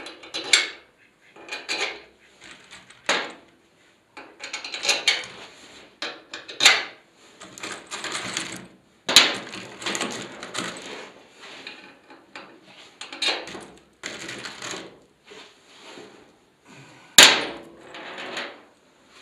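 Steel bolts, washers and small gearbox parts being handled, shaken in their bags and set down on a metal sheet: irregular clinks and knocks mixed with the rustle of packaging. The sharpest knocks come about nine seconds in and near the end.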